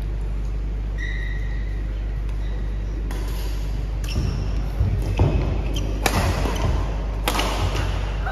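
Badminton doubles rally in a large echoing hall: from about three seconds in, sharp racket hits on the shuttlecock come roughly once a second, with thuds of footwork and a brief shoe squeak on the court, over a steady low hum.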